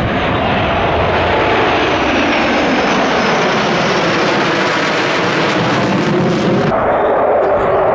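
Four Su-35S fighter jets flying over in close formation, a loud, steady jet-engine noise. About seven seconds in, the hiss at the top of the sound drops away abruptly.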